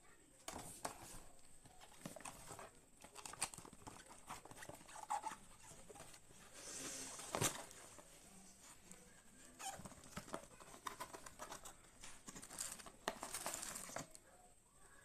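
Faint handling noise: irregular clicks, scrapes and rustling of objects being moved by hand, with a faint steady high-pitched whine underneath.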